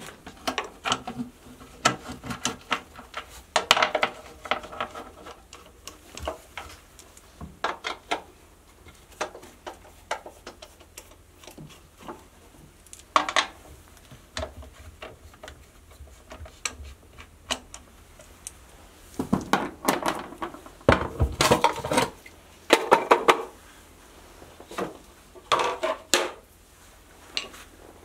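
Irregular clicks, taps and clatter of hands handling small plastic parts and packaging, then working at a sump pit's plastic lid and cables. The knocks come thicker and louder in the last third.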